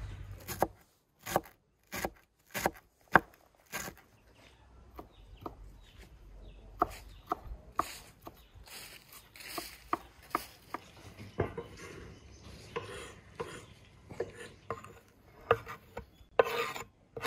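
Large kitchen knife chopping fresh herbs on a wooden cutting board: irregular sharp knocks, sparse at first and quicker from about five seconds in. Near the end the knife scrapes the chopped herbs off the board.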